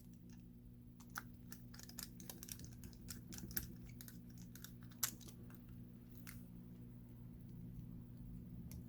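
Faint, irregular clicks and small metallic ticks of a precision screwdriver and tiny screws being fitted into a Samsung Galaxy Note 9's internal bracket, most of them between about one and six seconds in, over a low steady hum.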